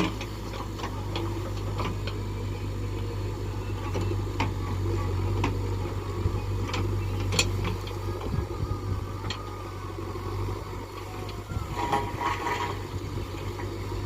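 Diesel engine of a backhoe or tractor running steadily at a low, even speed, with scattered sharp clicks and knocks over it.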